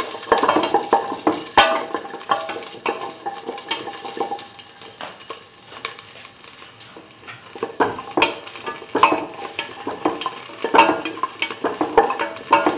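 Fennel seeds frying in hot oil in a stainless steel pan, sizzling with irregular sharp crackles and pops that thin out for a few seconds in the middle and pick up again. Near the end a shallot is dropped into the pan.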